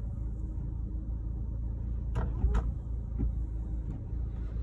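Steady low rumble inside a moving car while the windshield wipers, fitted with new Minda frameless blades, sweep the glass and come to rest. Two sharp clicks a little over two seconds in.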